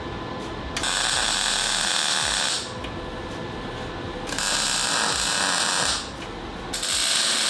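A shop power tool run in three bursts of about one and a half to two seconds each, with a lower steady running sound between them.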